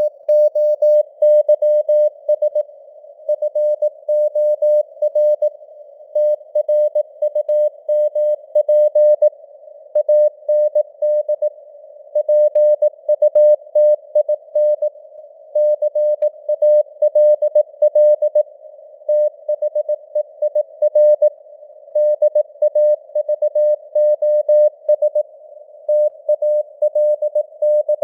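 Morse code (CW) sent at 18 words per minute: a single mid-pitched tone keyed on and off in dots and dashes with short gaps between letters and words. It sits in a narrow band of simulated radio hiss, as on a receiver tuned to a CW signal.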